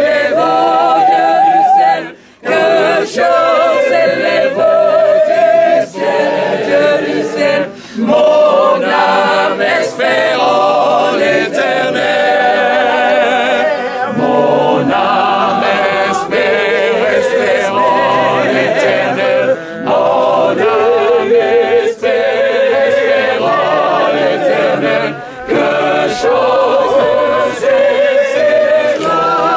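A group of mourners singing together without accompaniment, their held notes wavering, with short breaks between phrases.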